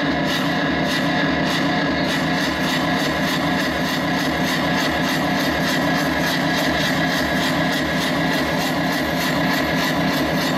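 Chinese lion dance percussion, drum and cymbals, beating a fast steady rhythm of about four to five strokes a second over a continuous loud wash of sound.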